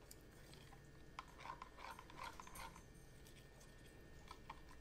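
Faint, irregular scraping and clicking of a plastic spoon stirring liquid melt-and-pour soap against the sides of a plastic pour pot.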